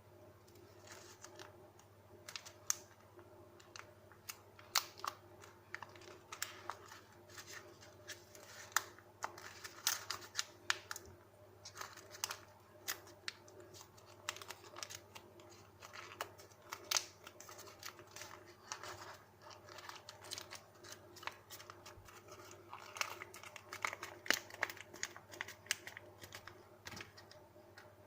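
A square sheet of paper being folded and creased by hand: irregular crinkles and sharp crackles of the paper. A faint steady hum runs underneath.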